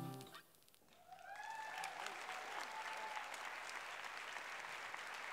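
Dance music ending, then after a short pause an audience starts applauding about a second in, with a long cheer from someone in the crowd rising and falling over the clapping.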